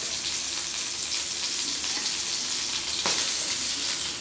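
Hot oil sizzling steadily in a frying pan around rava-coated oil sardines being shallow-fried, with a metal spoon working in the pan to lift the cooked fish out. A single sharp click of the spoon against the pan comes about three seconds in.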